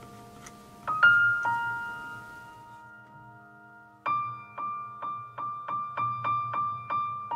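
Background piano music: a few sustained notes, a short pause, then one high note struck repeatedly, about twice a second, through the second half.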